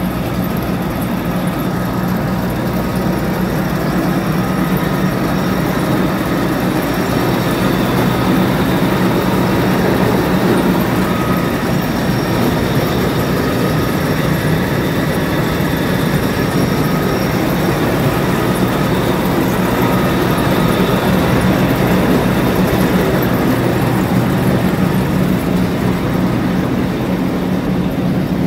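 Claas Lexion 560 combine harvester's diesel engine running steadily, a constant low drone.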